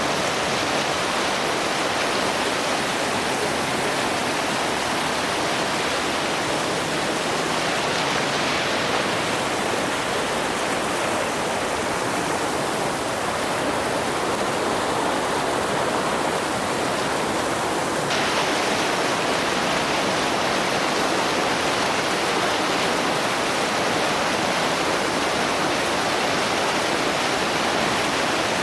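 Heavy rushing water of a river waterfall and rapids: a steady, dense roar of white water. About two-thirds of the way through, the higher part of the rush shifts suddenly, as if the listening spot changes.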